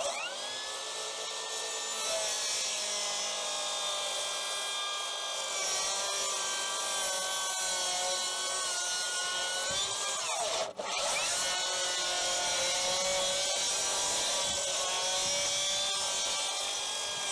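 Makita HS011GZ 40V cordless circular saw running as it cuts along the tops of wooden fence boards, its blade laid flat on the rail to trim them flush, with a steady motor whine under the cutting noise. About ten seconds in the motor winds down and stops for a moment, then spins back up and the cut carries on.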